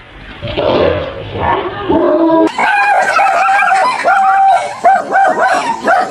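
Dogs barking and yelping. About two and a half seconds in, the sound switches abruptly to another dog giving a run of repeated, high yelps.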